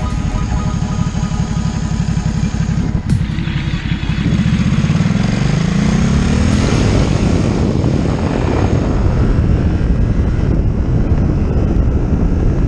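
A 2017 Ducati Supersport's 937 cc L-twin engine pulls away and accelerates, its pitch climbing from about four to six and a half seconds in. After that a rushing noise grows as the bike gathers speed, heard in sped-up playback.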